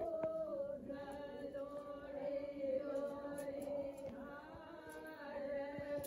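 Devotional chanting with long, steady held notes.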